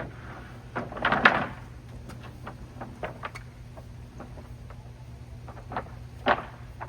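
Knocks and clatters of boards and aluminum pieces being handled and set down while a trailer is unloaded, the loudest cluster about a second in and a sharp knock near the end, over a steady low hum.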